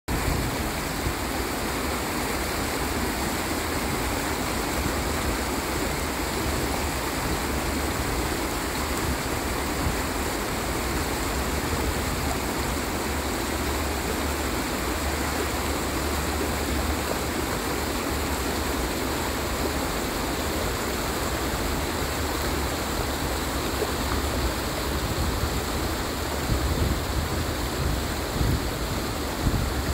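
Shallow, fast-flowing muddy stream rushing steadily over riffles.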